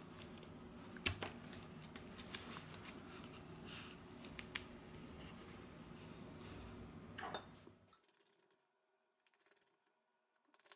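Small scattered clicks and rubbing as a plastic inner cover is pressed down by fingers and snapped into a smartphone's frame, over a faint steady hiss that cuts off about eight seconds in.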